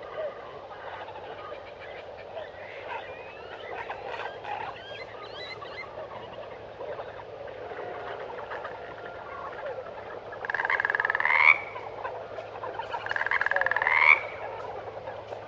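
A chorus of frogs calling, with many overlapping short croaks. Two much louder pulsed calls rise in pitch, each lasting about a second, one about ten seconds in and one about thirteen seconds in.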